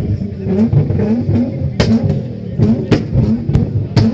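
Car engine revved in quick repeated blips through a loud exhaust, each blip a short rising note, with several sharp cracks from the exhaust in the second half.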